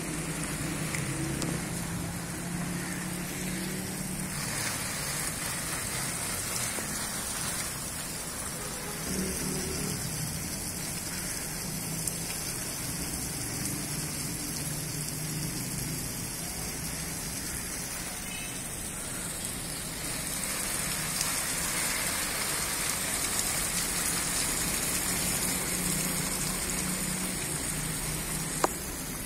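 Water from a hose spraying onto tree foliage: a steady hiss of drops spattering on leaves, growing a little louder about two-thirds of the way through.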